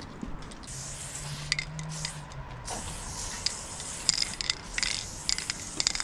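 Aerosol spray paint can hissing as a graffiti tag is sprayed onto a wall: one longer spurt about a second in, then a run of shorter spurts with small clicks.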